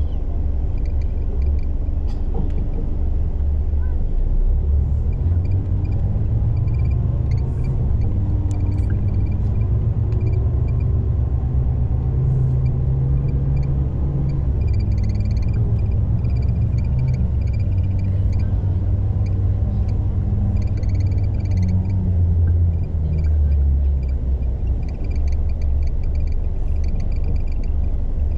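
Coach bus engine rumbling low and heavy, heard from inside the cabin as the bus moves slowly, its pitch rising and falling a little as it manoeuvres. Faint high chirps repeat at intervals over it.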